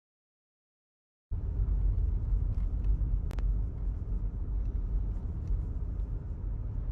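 Dead silence for about the first second, then a steady low rumble with one sharp click about three seconds in.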